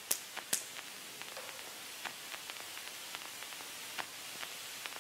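Two sharp hand smacks about half a second apart near the start, the end of an evenly spaced run of blows. A hand striking the face is the likeliest source. After them come only faint scattered ticks over a steady hiss.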